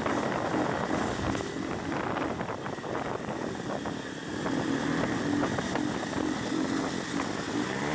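Motorcycle engine running while riding, mixed with rushing wind and road noise, its steady engine note standing out more clearly in the second half.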